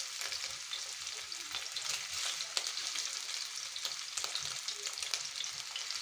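Ground-meat patties (köfte) frying in a pan: a steady sizzle with scattered small crackles as more raw patties are laid into the hot pan.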